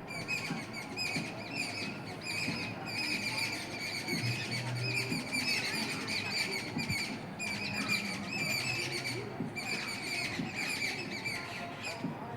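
A flock of small birds chirping and twittering together, many quick overlapping chirps with only brief pauses.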